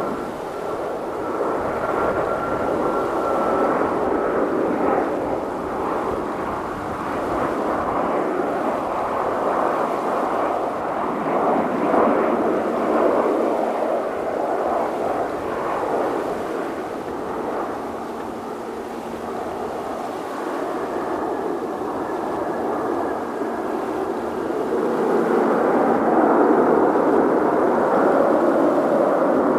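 Jet engine noise from a Boeing 737-800's CFM56-7B turbofans: a steady rush with a faint high whine in the first few seconds, growing louder over the last few seconds.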